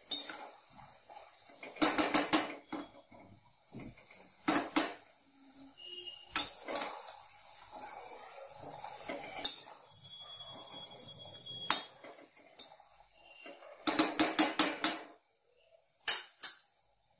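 Metal perforated skimmer clinking and scraping against a metal kadhai while namak pare deep-fry in hot oil, the oil sizzling steadily underneath. Runs of quick clinks come about two seconds in and again around fourteen seconds, with single taps between and two more near the end.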